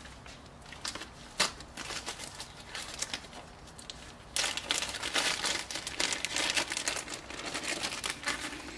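Crinkling and rustling of material being handled by hand, with scattered light clicks at first and denser crinkling from about four seconds in.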